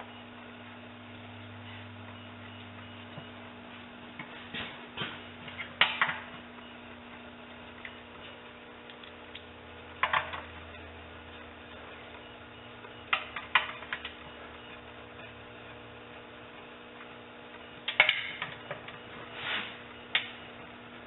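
Sharp metal clicks and clinks from hand tools working bolts on the transmission, coming in four short clusters, over a steady electrical hum.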